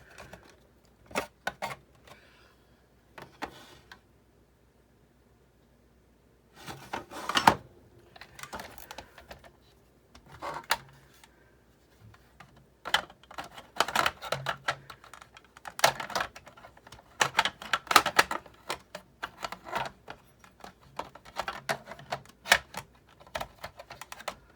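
Parts of a Sizzix Big Shot die-cutting machine clicking and knocking as they are handled and fitted together during reassembly: irregular clusters of sharp clicks, with a pause of a few seconds after the first few and denser clatter in the second half.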